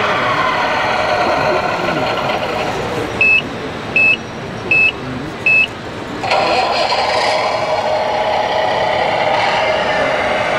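Scale RC construction machine running with a steady mechanical noise, sounding four short, high reversing beeps about three quarters of a second apart in the middle; about six seconds in the machine noise abruptly gets louder.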